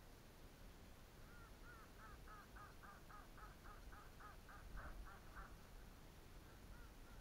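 Faint bird call: a fast, even series of about fifteen short notes, some four a second, lasting about four seconds.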